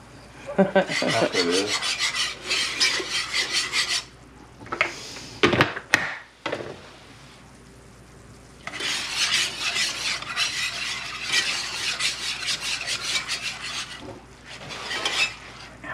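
Wire whisk stirring and scraping a thick, bubbling flour roux in an enameled cast-iron skillet, in two long spells of quick strokes with a couple of sharp knocks between them. The roux is being cooked before the milk goes in for gravy.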